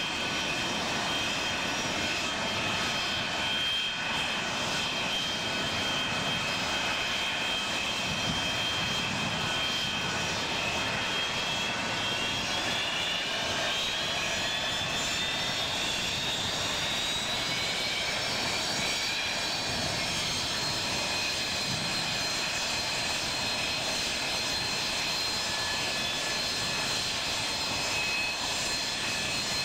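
Jet engines of a Boeing 727-200, its three Pratt & Whitney JT8D turbofans, running at taxi power: a steady rush with a high whine. The whine rises in pitch about halfway through, then holds higher.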